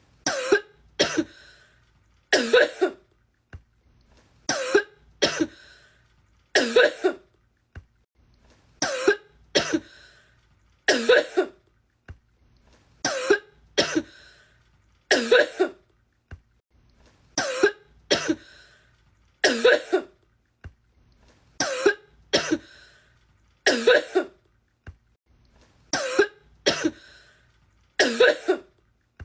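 A woman coughing in sharp, hacking coughs, clustered in twos and threes about every two seconds: one short coughing fit looped over and over.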